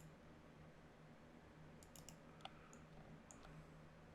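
Faint, scattered computer mouse clicks, a small cluster about two seconds in, over a low steady hum.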